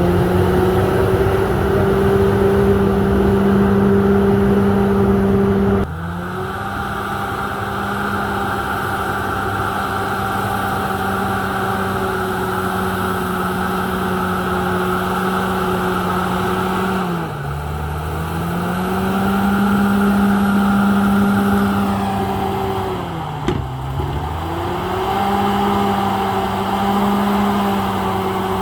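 Komatsu D68ESS bulldozer's diesel engine running at high revs, dipping in pitch twice and climbing back, with a sudden drop in loudness about six seconds in and a single click near the end.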